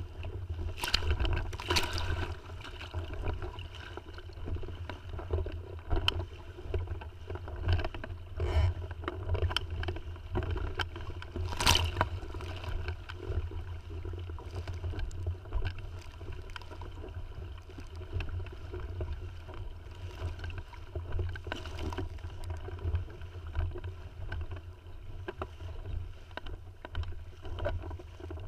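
Water sloshing and splashing against the hull of a Tiwal 3 inflatable sailing dinghy under way, over a steady low rumble of wind on the microphone. Occasional sharper splashes or knocks stand out, the loudest about twelve seconds in.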